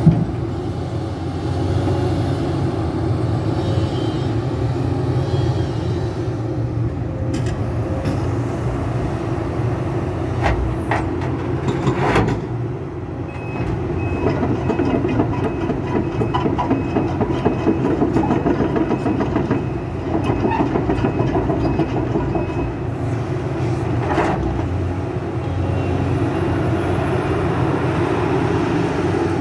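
Diesel engine of a Sumitomo SH350LHD-6 excavator running steadily at idle, a deep even hum. Partway through, a run of faint rapid clicks and a thin high whine sit over it.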